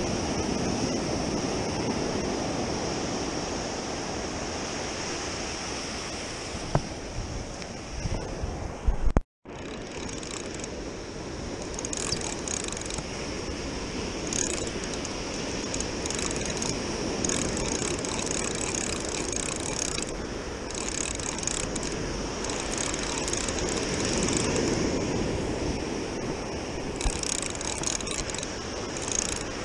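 Ocean surf breaking and washing up the sand. A couple of loud knocks come about nine seconds in, just before a brief dropout. After that, a spinning fishing reel is cranked in short spurts, its gears whirring over the surf.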